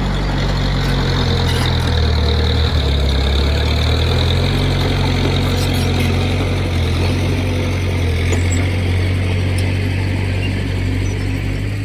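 Heavy diesel engine of earthmoving equipment running steadily at a low, even pitch.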